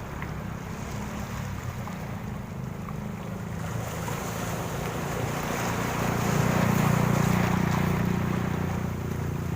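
Sea waves breaking on a beach: a steady wash of surf that swells to a loud peak about six to eight seconds in and then eases off. Wind rumbles on the microphone underneath.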